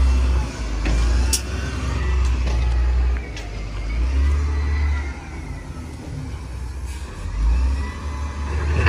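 Heavy diesel engine of a bulldozer or dump truck working under load, revving up and easing off several times with a deep rumble.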